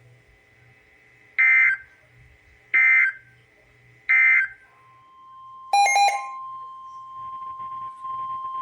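Emergency Alert System digital data tones: three short, loud warbling squawks about a second and a half apart, the end-of-message code closing the previous alert. About halfway through, a steady single-pitch alert tone starts faintly and grows louder, broken once by a sharp beep, as the next warning begins. A faint hiss and hum run underneath.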